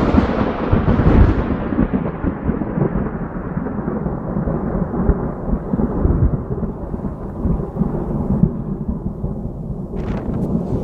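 Thunder rolling: a loud rumble that starts suddenly and slowly dies away, its sharper upper crackle fading into a low, continuing rumble.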